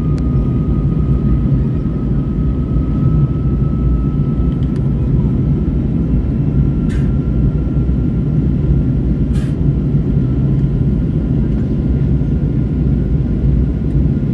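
Airplane during its landing: a steady low rumble of engines and airflow, with a faint thin whine that creeps slightly up in pitch and two short clicks about halfway through.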